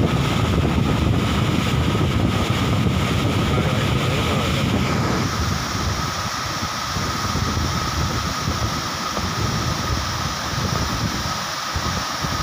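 Water pouring over a long concrete dam spillway, a steady rush, with wind buffeting the microphone.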